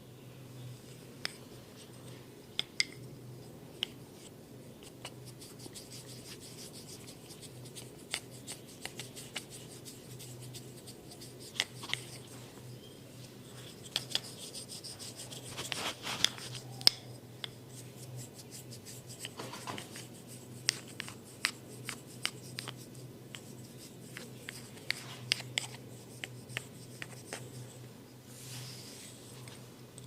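Hands rubbing and working over skin and hair in a massage: soft rubbing with many irregular sharp clicks and snaps, a few much louder than the rest, thickening around the middle.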